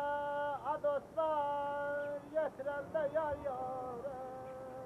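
A single voice singing a slow, unaccompanied-sounding song with long held notes joined by short sliding ornaments, the melody settling lower and fading near the end.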